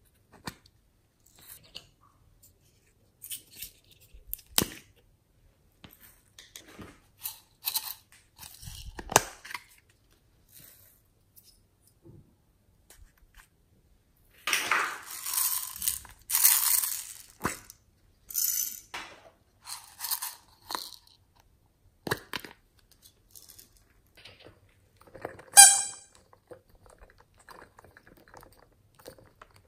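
Hands working glossy slime topped with foam slime and clay: scattered small clicks and taps as bits are added, then several seconds of loud squishing and crackling about halfway through, and a short squeak near the end.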